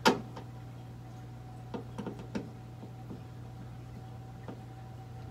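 A sharp click at the start, then a few light taps and clicks as a screw is set into a drywall anchor and a hand screwdriver is fitted to it, over a steady low hum.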